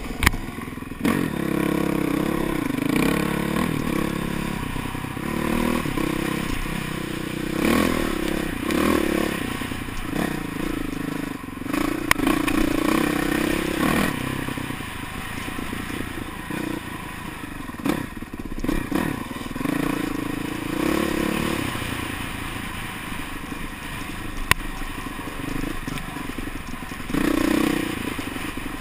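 Honda CRF450R single-cylinder four-stroke dirt bike engine under way on a trail, revving up and easing off again and again, with wind on the microphone. A few sharp knocks from the ride stand out above the engine.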